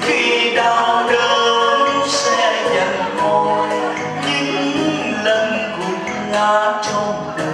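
Live performance of a Vietnamese Catholic Lenten hymn: singing with band accompaniment over a steady beat.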